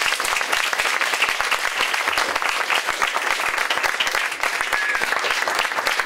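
Audience applauding: many hands clapping at once at a steady level.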